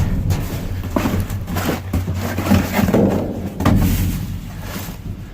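Rummaging through trash in a dumpster: irregular rustling and knocking as things are pushed about and picked up, over a steady low hum.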